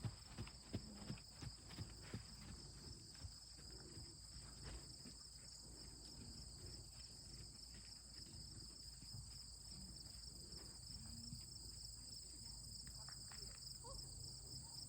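Crickets chirping in a steady, high-pitched chorus, with a few knocks of a horse's hooves in the first couple of seconds.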